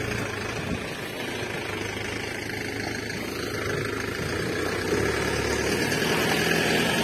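Steady truck engine running, getting a little louder about five seconds in.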